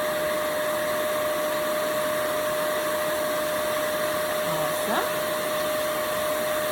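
Tuomico rechargeable electric air pump running steadily with a constant high whine over a rush of air as it inflates an air mattress.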